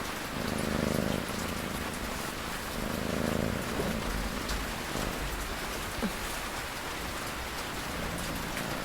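Steady rain with a cat snoring over it: two slow snores about three seconds apart in the first half.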